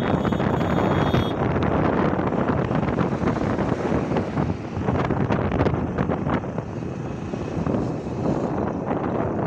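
Wind buffeting the microphone of a moving motorcycle, over the rush of road and traffic noise.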